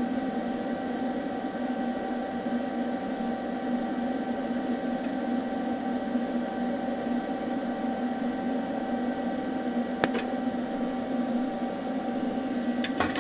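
TIG welding arc on thin mild steel sheet: a steady electrical hum and hiss. A sharp click comes about ten seconds in, and two more come close together near the end.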